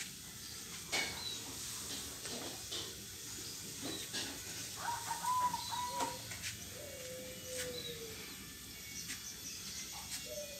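Zebra doves cooing, a few short pitched calls in the middle, with faint short high chirps and scattered clicks over a light hiss.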